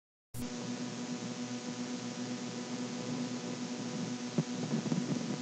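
Steady hiss with a low electrical hum from an old recording's background, cutting in abruptly just after the start, with a faint click about four seconds in.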